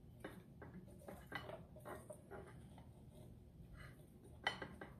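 A knife scraping and cutting into the top of a husked young coconut: faint scratching strokes with a few sharper clicks, the loudest about four and a half seconds in.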